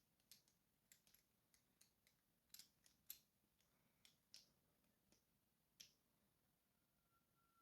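Faint, irregular small metal clicks and taps as an Abloy Classic 341 padlock and its parts are handled during disassembly, with several clicks in the first half and fewer toward the end.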